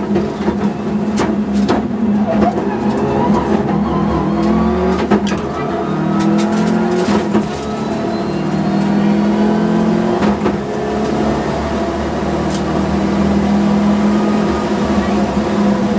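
Subaru Impreza WRX STI rally car heard from inside the cabin, its turbocharged flat-four engine running hard under load. The pitch repeatedly climbs and drops back, with sharp clicks, most of them in the first half.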